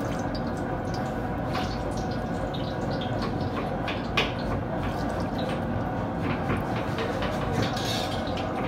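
Hot cooking oil with whole spices sizzling in a steel pot, with scattered small crackles and pops, one louder pop about four seconds in.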